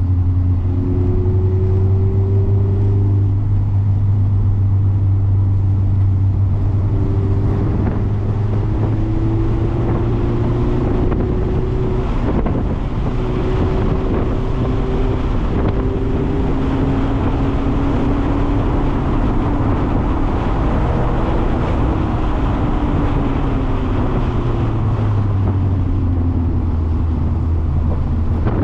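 Mazda MX-5 ND engine heard on board at track speed. Its note slowly rises and falls with the throttle over a steady hiss of wet tyres and spray, which swells in the middle.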